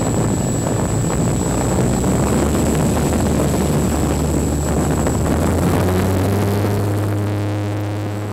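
Brushless electric motor and propeller of a GWS Slow Stick RC plane running at power, picked up by the camera mounted on the plane: a loud, steady rush of air and prop noise with a thin, steady high whine. Near the end, steady low tones come in underneath.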